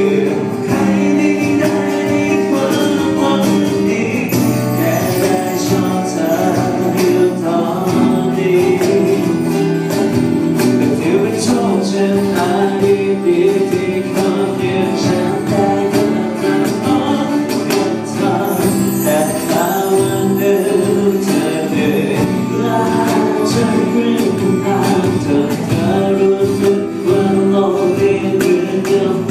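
Live acoustic band playing a song: a man singing into a handheld microphone, accompanied by strummed acoustic guitars and an electric bass guitar.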